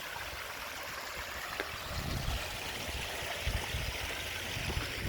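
Water running steadily over a garden koi pond's waterfall and biological filter, an even splashing, trickling hiss, with some low rumbling underneath from about two seconds in.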